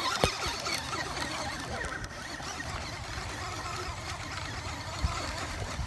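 Spinning reel being cranked steadily, reeling in a hooked fish, a continuous rattling whir with a sharp knock just after the start and another near the end.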